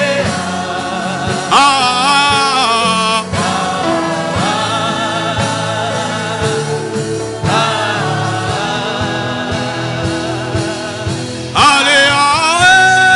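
Gospel music: sung phrases held with vibrato over a steady accompaniment with a regular beat, with a louder held phrase starting near the end.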